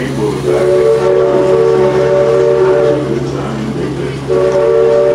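Steam whistle of the Mark Twain sternwheel riverboat sounding a chord of several steady tones. One long blast lasts about two and a half seconds, then a second blast starts near the end and cuts off abruptly. A steady low hum runs underneath.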